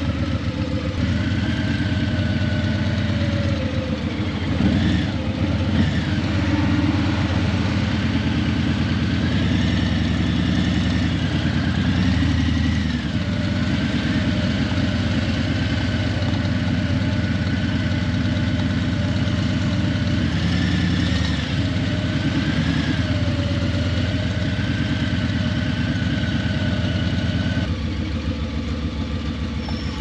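Harley-Davidson Breakout 117's Milwaukee-Eight 117 V-twin running through Vance & Hines Eliminator 300 slip-on exhausts: a steady low engine note whose pitch drifts gently up and down, a little quieter near the end.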